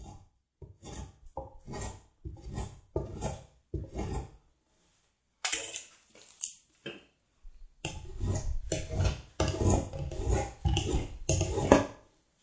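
Hand edge tool shaving the edge of a wooden Windsor chair seat: a run of short cutting strokes, about two a second, then after a pause near the middle a louder, faster run of strokes.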